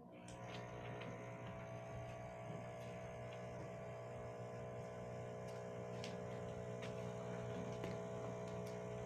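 Steady electrical hum made of several fixed tones, coming in suddenly as a microphone opens on a video call, with a few faint clicks scattered through it.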